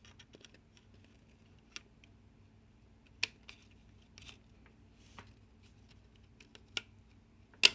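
Scattered small clicks and taps of a DDR3 laptop RAM stick being handled and pushed into its slot in a MacBook, with a sharper click about three seconds in and the loudest click near the end as the module seats.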